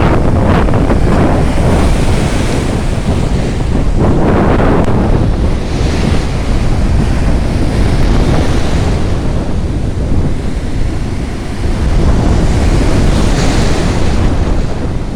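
Shallow sea surf washing and breaking in repeated swells, with strong wind buffeting the microphone.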